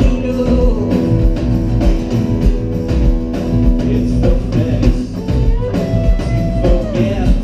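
Live rock band playing electric and acoustic guitars over a drum kit, with steady drum hits. In the second half a guitar line glides between notes.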